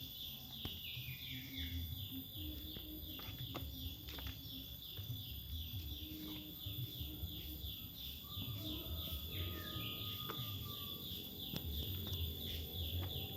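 A bird calling a long, steady series of short high chirps that fall in pitch, about three a second, over a low rumble of background noise.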